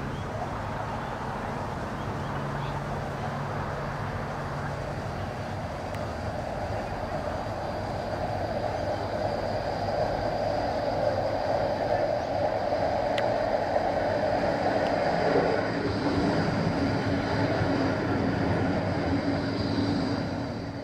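A tram running on its rails, getting louder about halfway through as a thin high whine joins in.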